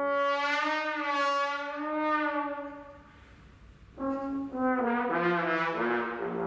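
Brass ensemble playing held chords; the chord dies away about three seconds in, and after a short rest a new phrase comes in sharply about a second later.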